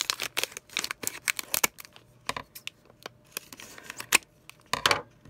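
Scissors snipping through a foil blind bag, a quick run of sharp clicks and crackles in the first second or two. The foil then crinkles and rustles as the bag is handled, loudest near the end.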